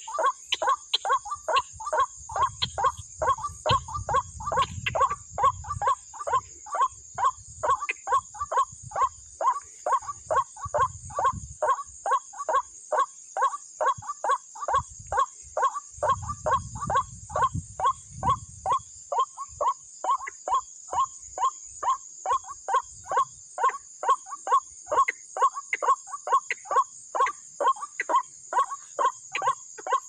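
White-breasted waterhen (ruak-ruak) calls: a monotonous string of clucking notes repeated about three times a second without a break, over a steady chorus of crickets.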